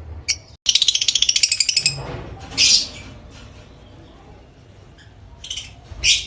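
Fischer's lovebird chirping: a fast, high trill of chirps about a second long just after the start, then single sharp calls near the middle and twice near the end.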